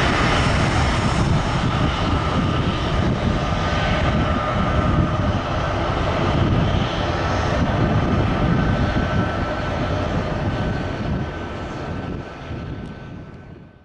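Twin-engine jet airliner's turbofan engines at climb power after takeoff: a steady rushing noise with a faint high whine, fading out over the last two seconds.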